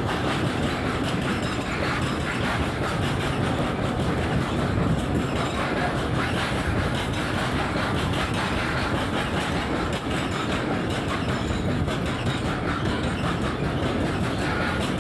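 Freight train of open wagons rolling past close by: a steady rumble of steel wheels on the rails, with a continuous run of clicks as the wheels pass over the rail joints.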